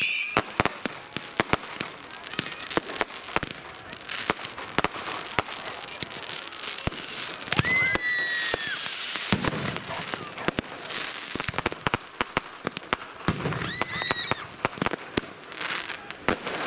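Massed New Year's Eve fireworks: a dense, continuous crackle of firecrackers and rocket bangs in quick succession. Several thin whistles fall in pitch around the middle, and another whistle sounds near the end.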